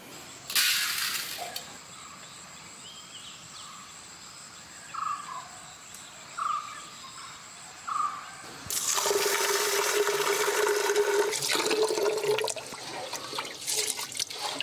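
Red kaje rice being washed by hand in a metal pot: water sloshing and splashing over the grains, starting loudly about two-thirds of the way in. Near the start, a brief rustle of rice grains scooped from a brass vessel.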